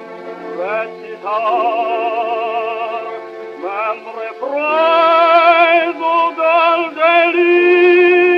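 Operatic tenor singing with wide vibrato, in phrases that rise into long held notes, played from a 1919 acoustically recorded 78 rpm disc. The sound is thin, with no deep bass or high treble.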